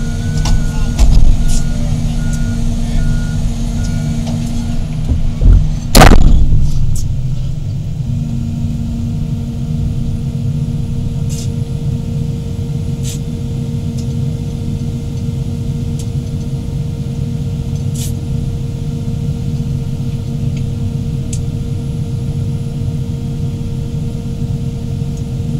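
Heavy excavator's diesel engine and hydraulics running steadily under load, with a steady whine. A loud sudden noise comes about six seconds in.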